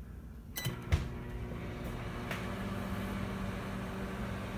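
Microwave oven starting with a few clicks and a knock about a second in, then running with a steady hum.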